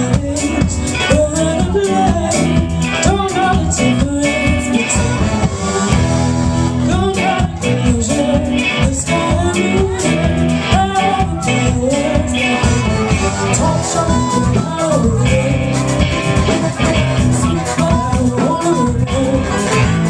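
Live band playing a song: a woman singing lead over a horn section of saxophone and trombone, electric guitars and drums, loud and steady.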